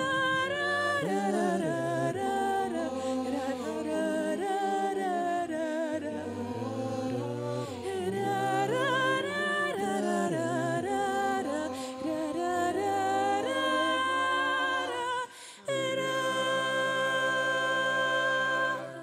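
Teenage vocal group singing wordless a cappella harmony, with a short break about fifteen seconds in, then one long held chord that cuts off sharply at the end.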